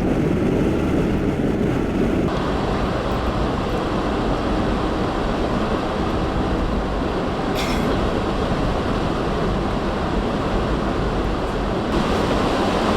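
Steady rumble of a car's tyres and wind noise while driving on a highway, with a brighter hiss joining about two seconds in and a brief sharp hiss near the middle.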